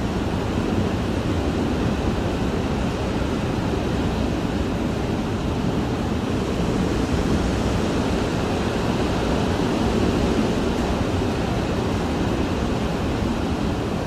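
Hurricane wind heard from inside a house: a dense, steady, deep rushing that swells slightly now and then.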